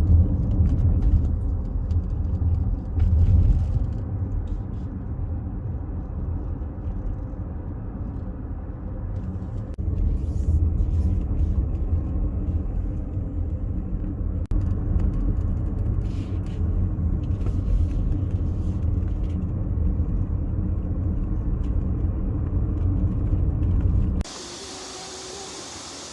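Steady low road and engine rumble inside a moving car's cabin. Near the end it cuts off suddenly and gives way to a quieter, even rushing hiss.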